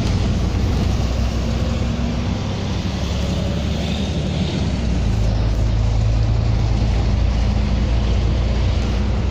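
Volvo B9TL double-decker bus heard from the upper deck while moving: the diesel engine's steady drone under road and tyre noise, the engine note a little softer a couple of seconds in and stronger again from about halfway.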